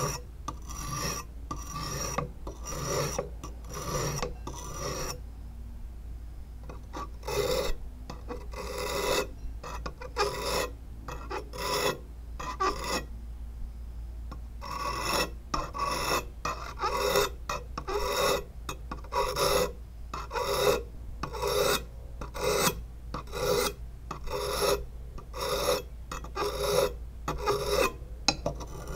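Bar-shaped sharpening stone rubbed back and forth along the wet blade of a new rubber-tapping knife, shaping and honing its edge: a steady run of rasping strokes, about one and a half a second, with a short break about five seconds in and a brief lull near the middle.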